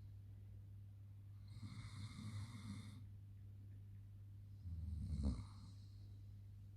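Saarloos wolfdog snoring in its sleep: two rattly snores, the second shorter and louder.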